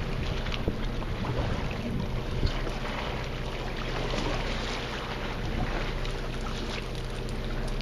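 Steady low hum of a boat's machinery, with wind on the microphone and a couple of small sharp knocks, about a second and two and a half seconds in.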